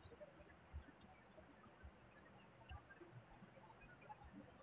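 Computer keyboard being typed on: faint, irregular key clicks in quick runs.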